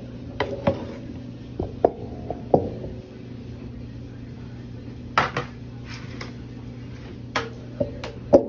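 Scattered knocks and clinks of a metal broiler pan and a ceramic plate being handled and set down on a wooden table, some ringing briefly, over a steady low hum.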